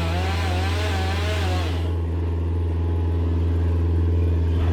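Chainsaw running with a wavering engine pitch, cutting off about two seconds in, over a steady low engine drone from heavy machinery that carries on.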